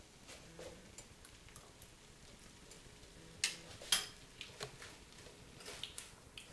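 Light scattered clicks and taps of utensils against cookware, with two sharper clicks a little past the middle.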